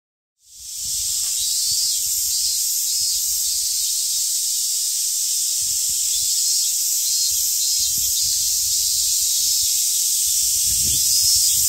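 Cicadas calling: a dense, steady, high-pitched sizzling buzz that fades in over the first half second, the males' call to attract a mate. Some low rumble on the microphone underneath, heavier near the end.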